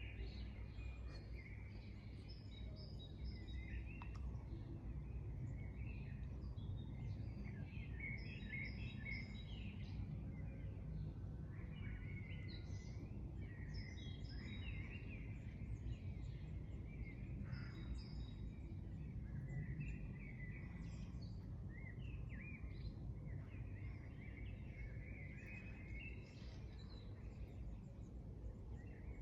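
Several small birds chirping and singing in quick, overlapping phrases, over a steady low rumble.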